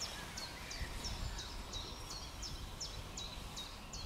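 A small songbird repeating one short, high, falling note about three times a second, over a faint low background rumble.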